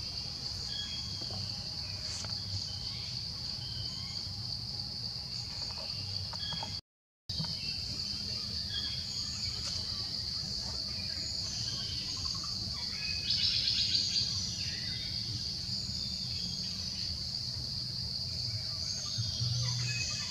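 A steady, high-pitched insect chorus buzzes without a break, with scattered short bird chirps over it. A short, rapid pulsing trill stands out about two-thirds of the way in, and the sound cuts out for a moment about a third of the way in.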